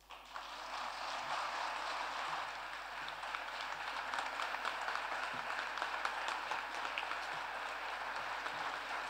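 Audience applauding: many hands clapping, starting suddenly and keeping up steadily.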